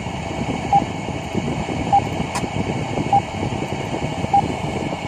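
Short electronic alarm beep from a ship engine-room simulator, repeating four times about every 1.2 seconds over a steady machinery hum. A single sharp click comes about two and a half seconds in.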